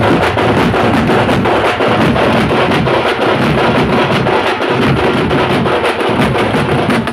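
A group of large frame drums beaten with thin sticks, playing a fast, loud, driving rhythm without a break.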